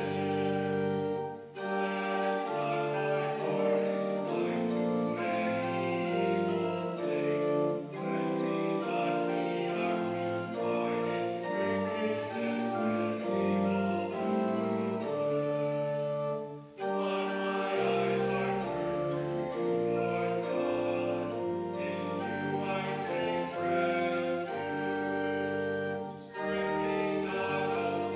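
Slow church music of sustained, held chords that change from one to the next, with short breaks between phrases. The breaks come about a second and a half in, just past the middle, and near the end. A deep bass line comes in after the middle break.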